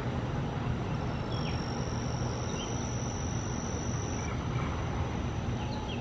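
Steady low outdoor background rumble, with a thin, high, steady whine from about a second in until about four seconds in and a few faint short chirps.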